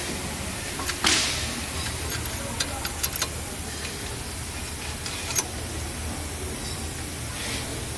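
A few sharp clicks and knocks of rowing-machine parts and tools being handled, the loudest a knock about a second in, over a steady hiss.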